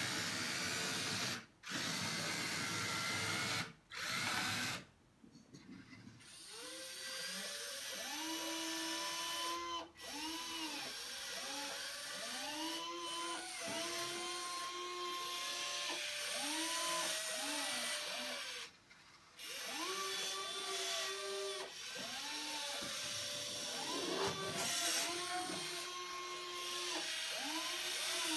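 Electric servos of a metal RC Volvo EC160E model excavator whining as its boom, arm and bucket move. Each movement is a tone that rises, holds and falls away, and these overlap one after another. The first few seconds hold a rougher motor buzz that stops and starts.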